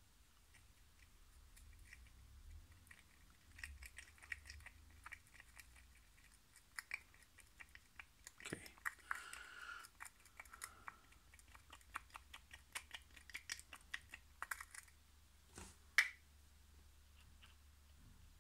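Light clicks, taps and scrapes of a thin metal rod working in a small cup of plastic sanding dust and superglue and poking into the screw holes of a plastic RC chassis part, packing the holes to fill them. A short scrape comes midway and a sharper click near the end.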